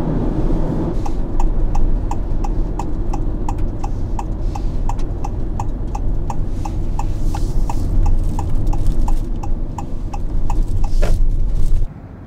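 Turn-signal indicator ticking steadily, about three ticks a second, inside a moving minivan's cabin over loud road and engine rumble, as the car signals to pull off at the pass summit. The rumble cuts off suddenly near the end.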